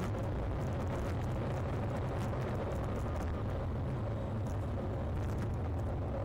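Steady low rumble of a car driving on an open road, engine and tyre noise heard from inside the cabin, with a faint steady hum above it.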